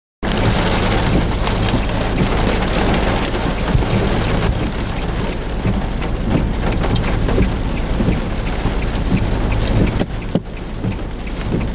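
Heavy rain pelting a vehicle, a dense patter full of sharp drop impacts over a steady low hum. It cuts in abruptly just after the start.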